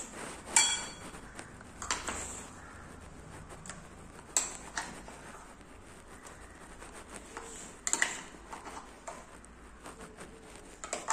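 Plastic spoon stirring mashed banana into milk-soaked flattened rice in a ceramic bowl, with soft wet stirring and a few sharp clicks where the spoon knocks the bowl's side.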